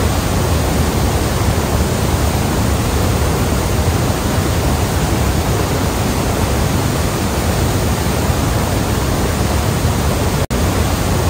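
Iguazú Falls' cascades pouring over the rock ledges: a loud, steady, deep rush of falling water. It breaks off for an instant about ten and a half seconds in.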